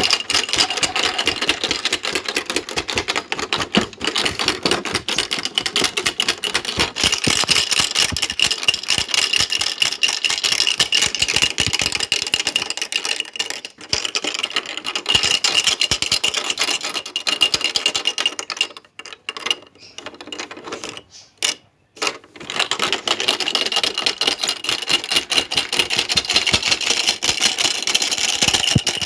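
Washing machine running its automatic spin cycle, rattling and clattering rapidly as it shakes. The rattle breaks off briefly a few times about two-thirds of the way through, then carries on.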